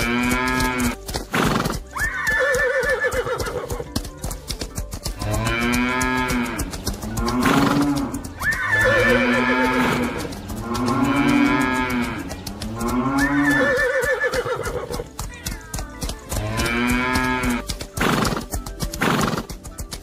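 Animal calls from a stampede soundtrack: cattle mooing and horses whinnying, a string of drawn-out calls every second or two.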